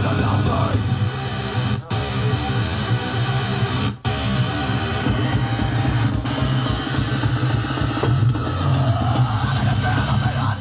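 Rock music with guitar played through a repaired Blaupunkt SL 8715-A2 8 cm miniature speaker, with a strong bass line. The music drops out very briefly twice, about two and four seconds in.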